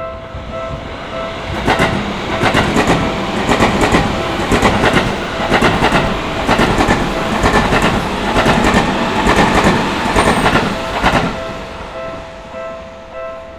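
Japanese level-crossing warning bell ringing in a steady repeating electronic ding. From about two seconds in until about eleven seconds in, a Seibu Shinjuku Line electric commuter train passes close by and drowns it out, its wheels clattering in a regular rhythm. The bell is heard alone again near the end.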